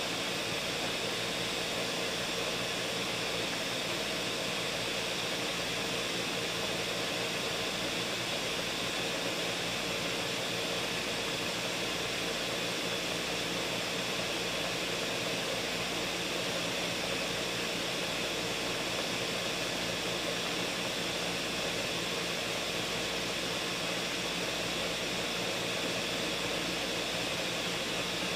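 Ninja countertop blender running steadily, blending a green smoothie of frozen strawberries, lemon, spinach, arugula and almond milk: an even whirring rush with a steady hum under it.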